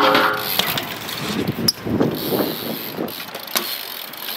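BMX bike riding over concrete skatepark ramps: tyres rolling, with scattered sharp clicks and knocks from the bike. A short pitched sound comes right at the start.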